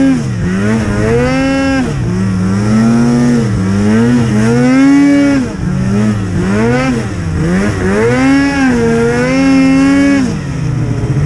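Snowmobile engine revving up and down as the throttle is worked on and off, its pitch rising and falling every second or two, then settling to a lower, steadier note about ten seconds in.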